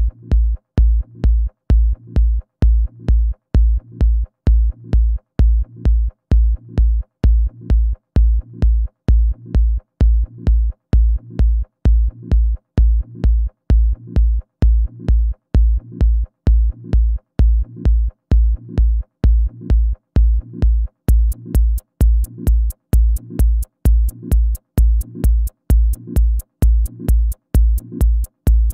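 Electronic dance music with a steady kick drum at about two beats a second; a high hi-hat tick joins about three quarters of the way through.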